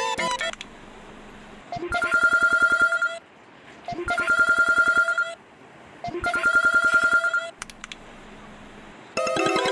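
Phone ringtone ringing three times: a steady, rapidly pulsing electronic trill lasting just over a second each time, with short pauses between rings. A melodic tune cuts off just after the start and another begins near the end.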